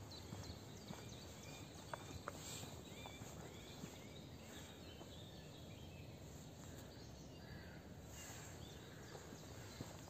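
Faint birdsong from several small birds: short chirps and whistles overlapping each other, with a few soft clicks in the first two seconds.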